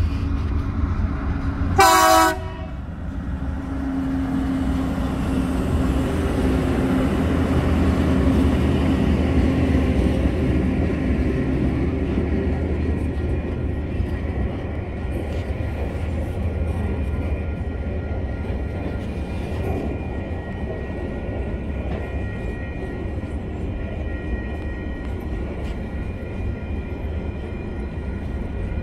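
A short blast on a TasRail TR class diesel locomotive's horn about two seconds in, then the locomotives' engines running as they pass, swelling and fading. The steady rumble of loaded container wagons rolling past on the rails follows.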